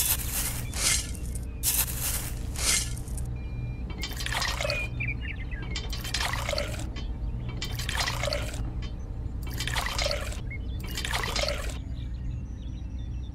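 Small amounts of water poured from a miniature metal bucket into a toy machine's hopper of dry cement and sand, splashing in five separate pours. It is preceded by a few short scrapes of the dry mix being shovelled.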